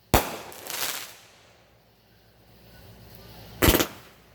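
Consumer aerial firework cake firing shots: a sharp, loud bang right at the start with a second burst just after it, then another loud bang about three and a half seconds in.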